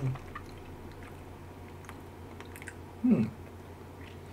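A person chewing a mouthful of Red Leicester cheese with the mouth closed: faint soft clicks and smacks, with a brief falling hum of the voice about three seconds in.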